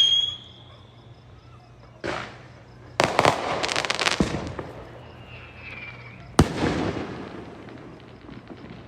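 Fireworks going off around the neighbourhood. A bang comes about two seconds in, then a run of crackling pops, a faint falling whistle, and a sharp, loud bang past six seconds with a long rumbling tail.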